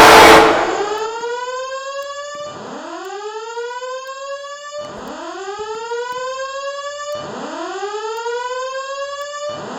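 Fire alarm voice-evacuation speaker sounding the whoop evacuation tone: about four rising whoops, each about two and a half seconds long, the last one cut off short. It opens with half a second of loud, even noise that cuts off.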